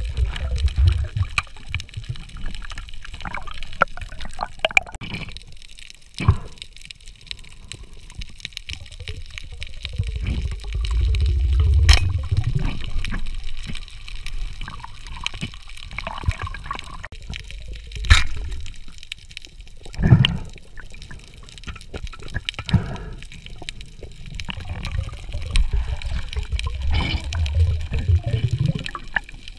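Underwater sound picked up by a diver's camera: muffled water movement and bubbling in low swells, broken by three sharp knocks.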